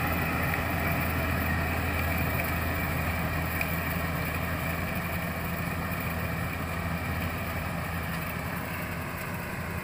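Combine harvester engine running steadily with a low drone, slowly growing fainter.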